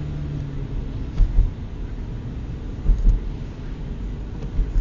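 Car cabin noise while driving on a slushy, snow-covered road: a steady low engine hum and tyre rumble, with a few short low thumps about a second in, around three seconds and near the end.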